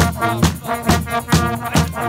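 Brass street band playing: trumpet and sousaphone over a steady bass drum and cymbal beat, about two beats a second.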